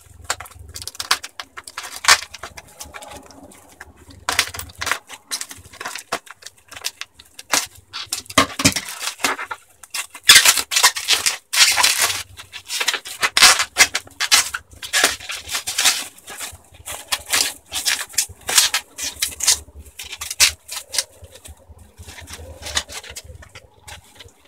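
Bubble wrap and plastic packaging crinkling and rustling in dense, irregular crackles as it is cut open and pulled apart by hand.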